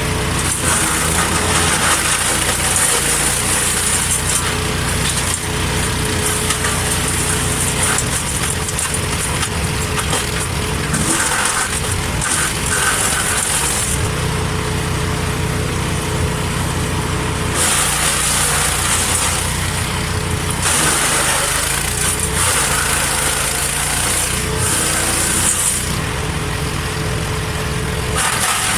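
Wood chipper's engine running steadily, with repeated stretches of harsher, louder noise every few seconds as branches are fed through and chipped.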